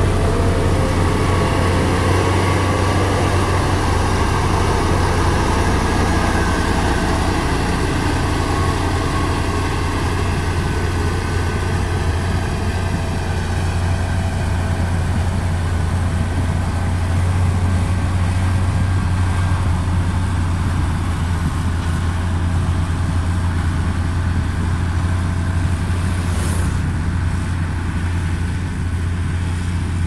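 Diesel engine of a LiuGong padfoot soil-compactor roller running steadily as the machine works over loose soil, with a steady low hum.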